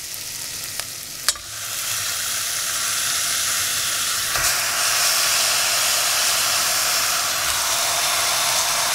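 Raw chicken pieces going into hot masala in a stainless steel pressure cooker and sizzling. There is a sharp click a little over a second in, then the sizzle grows louder, and it swells again around four seconds in as more chicken goes in.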